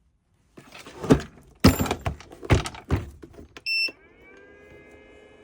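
Plastic housing of a battery jump starter knocked and clicked as it is handled and closed up, then a short electronic beep as the unit powers on, followed by a faint steady hum and a second beep at the end.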